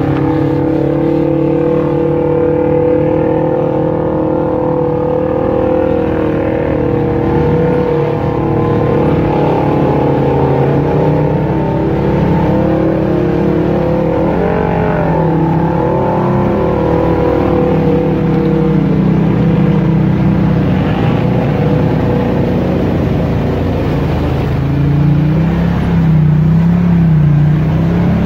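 Side-by-side UTV engine running steadily, loud. The revs dip and rise briefly about halfway through and waver again near the end.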